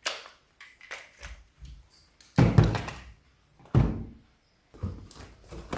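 Plastic clicks and knocks of two retractable dog leashes being handled, then two heavier thumps, about a second and a half apart, as things are set down on a shelf, and a lighter knock near the end.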